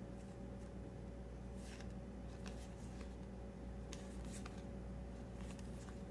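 Trading cards being slid one behind another in the hand: a few faint, soft swishes and light ticks spaced irregularly, over a low steady hum.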